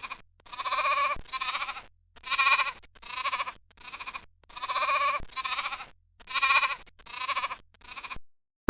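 An animal bleating over and over: short pitched calls, about half a second each, mostly in pairs roughly once a second, stopping abruptly near the end.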